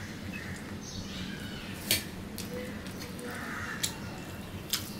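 Crows cawing in the background, hoarse calls about a second in and again after three seconds. Three sharp clicks from a man eating rice by hand from a steel plate are the loudest sounds.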